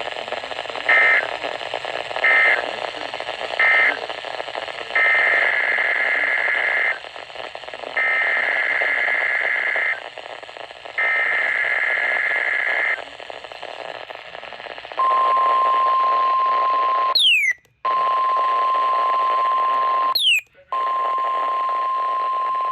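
Radio receiver with static hiss sounding three short beeps, then three long beeps. About 15 seconds in, the steady 1050 Hz NOAA Weather Radio warning alarm tone starts. It is broken twice by brief dropouts, each with a quick falling chirp.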